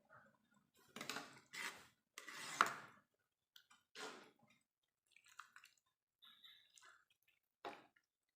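Water splashing in several short bursts, the loudest about one to three seconds in.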